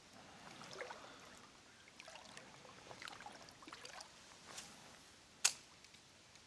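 Faint flowing river water with scattered small ticks and clicks, and one sharp click about five and a half seconds in.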